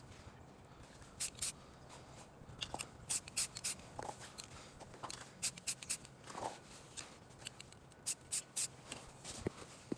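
Aerosol spray paint can giving short hissing bursts, a few quick taps at a time in several clusters, as paint is dusted onto the rifle in patches.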